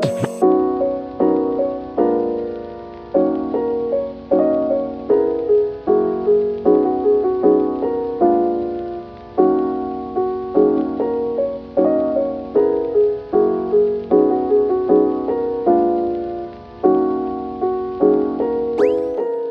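Background music: a gentle keyboard piece of soft piano-like chords and notes changing about every half second, without drums.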